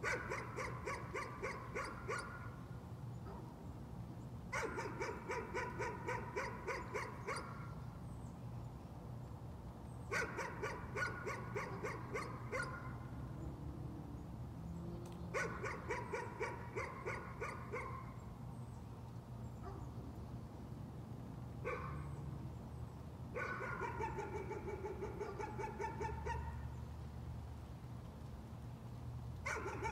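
Dog barking in rapid bouts of about four barks a second, each bout lasting two to three seconds, with pauses of a few seconds between them: persistent nuisance barking.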